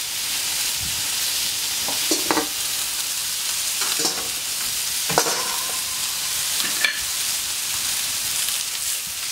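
Celery, mushrooms and spatchcocked poussins sizzling steadily on the hard-chrome steel plate of a gas plancha, with a few metal clinks and knocks from the stainless steel dome lid being lifted off and set down, one ringing briefly about seven seconds in.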